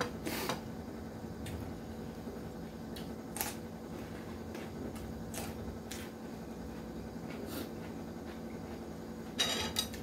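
A person eating with fingers and a spoon: a handful of faint short mouth and utensil sounds, with a louder cluster just before the end, over a steady low hum.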